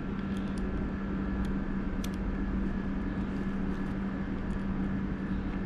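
A few faint light clicks of a 3 mm Allen key working the tight screws on an electric scooter's handlebar, over a steady low hum.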